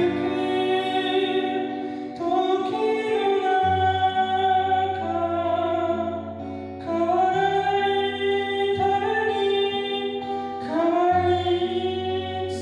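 A man singing in a high voice over an acoustic guitar, in long held notes. It is picked up by a camera-mounted microphone in a reverberant room, so the echo blurs the outline of the voice and guitar.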